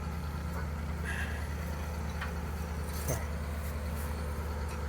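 Engine of the machine lifting the pole by its chain, idling steadily with a low, even hum.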